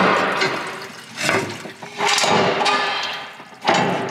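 Liquid being poured or splashed out of a container in four rushing surges, each fading away over about a second.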